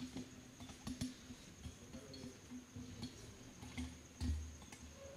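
Faint scattered clicks and soft knocks of instruments and gear being handled, with a louder low thump about four seconds in; no music is playing.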